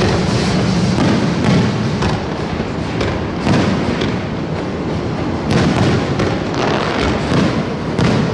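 A passenger train hauled by the steam locomotive D51 498 crossing a steel truss bridge: a loud, steady rumble broken by irregular heavy thumps.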